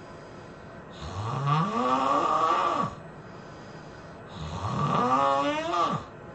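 A person snoring: two long, pitched snores about three seconds apart, each rising in pitch and then dropping away at its end.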